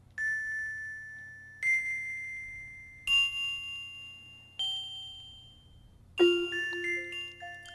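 Bell-like mallet-percussion music, like a glockenspiel or chimes: four single notes struck about a second and a half apart, each ringing out and fading, then a quick run of several notes near the end.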